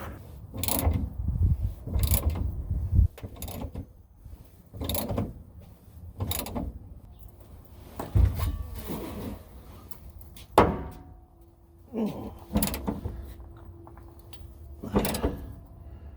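Intermittent clunks, knocks and scrapes of tools and equipment being handled and moved about, about a dozen separate sounds.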